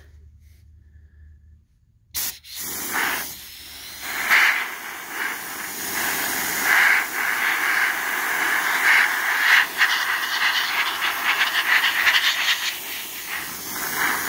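Compressed-air blow gun hissing in a loud, uneven blast, drying phosphate solution off freshly sandblasted metal parts. The air comes on about two seconds in, just after a click, and swells and dips as the gun moves over the parts.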